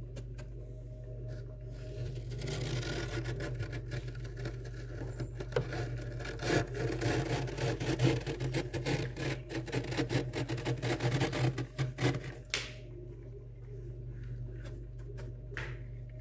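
Bare fingers scraping and scooping soft frost off the inside walls of a freezer, a dense crunchy, scratchy rasp with many small clicks that grows stronger after a couple of seconds and eases off near the end. A steady low hum runs underneath.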